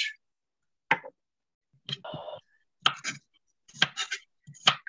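Kitchen knife slicing a radish on a plastic chopping board: several sharp, irregularly spaced taps of the blade hitting the board.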